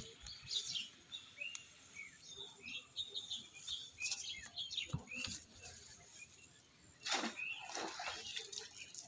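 Small birds chirping over and over in short, high notes, some of them falling in pitch, with a few louder, short noise bursts, the longest about seven seconds in.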